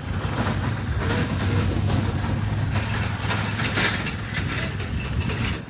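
A motor vehicle's engine running steadily: a low hum under a noisy rumble.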